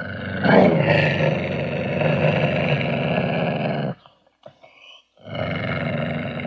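Ocelot calling: one long, rough call lasting about four seconds, a brief pause, then a second long call starting about five seconds in.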